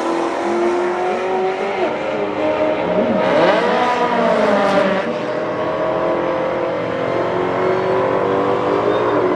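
Dodge Challenger SRT Demon's supercharged V8 revving, rising and falling in pitch a few seconds in, then held at steady high revs through a rear-tyre burnout.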